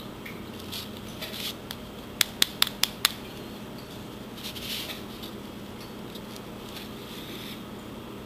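Small handling sounds from dry-pigment weathering with a hobby brush: five quick sharp taps about two to three seconds in, a fifth of a second apart, with soft scratchy brushing before and after.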